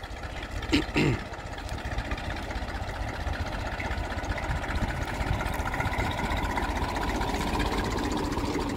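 Massey Ferguson 35 tractor engine running steadily while pulling a cultivator, with its "kit-mit kit-mit" chug, getting louder as the tractor comes closer. A brief sharp sound about a second in.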